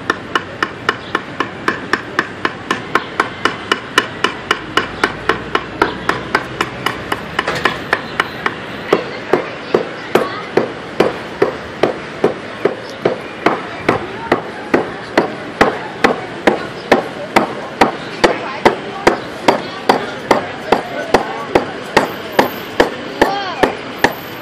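Short hand adze chopping into the hollow of a wooden bowl blank: sharp, evenly spaced strokes, about two to three a second, as the bowl is hollowed out.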